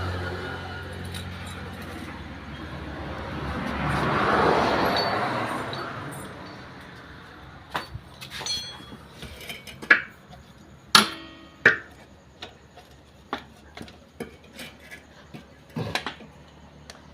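A swelling, then fading, rush of noise peaking about four seconds in, followed by sharp, scattered metal clinks and taps of a spanner and small metal parts as the oil nut is fitted and tightened on the motorcycle's engine casing.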